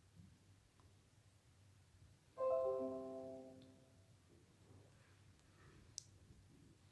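A short bell-like chime of several notes, like a marimba or vibraphone, struck about two and a half seconds in and ringing out over about a second; otherwise near silence, with a faint click near the end.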